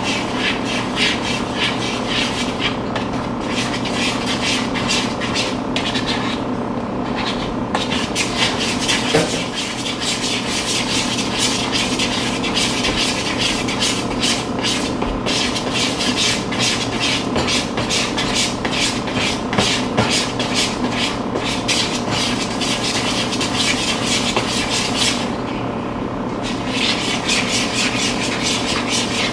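Whisking in a small bowl with a hand-held utensil, a fast run of scraping strokes against the bowl, broken by a few brief pauses. Underneath is a steady hum made of several steady tones.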